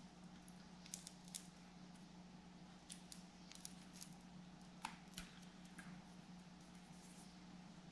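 Faint small clicks and scratches of fingers handling insulated wires and a taped joint inside a wall socket box, over a low steady hum.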